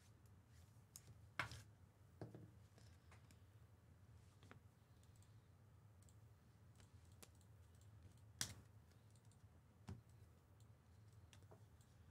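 Near silence broken by about five faint clicks and taps, the sharpest about a second and a half in and just past eight seconds in. They come from trading cards and card holders being handled on a table.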